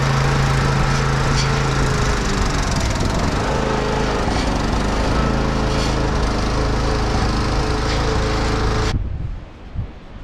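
Gas-powered bed edger's small engine running hard while its blade chews through root-filled soil, the engine's hum turning rougher and unsteady after about two seconds. The engine sound cuts off abruptly about nine seconds in, leaving wind on the microphone.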